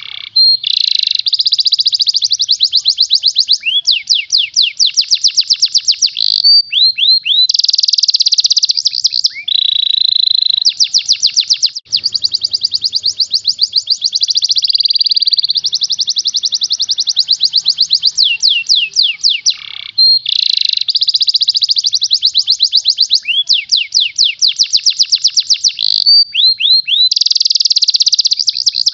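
Domestic canary singing continuously: fast trills of tightly spaced repeated notes, one trill type after another, with a few short breaks between phrases.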